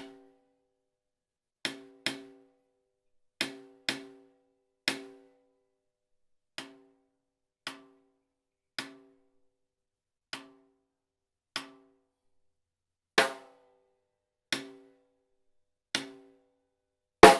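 Snare drum struck with single hits at irregular intervals, about fifteen in all, each followed by a short ringing decay of the drum head. Two hits, one about two-thirds through and one at the very end, are struck harder than the rest.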